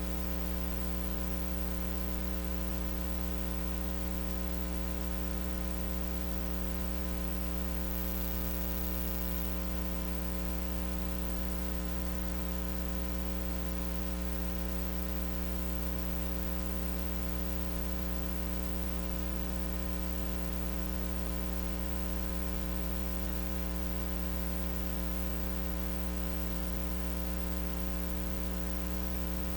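Steady electrical mains hum with a stack of overtones over a faint hiss: the noise of an audio input left live with the microphone switched off.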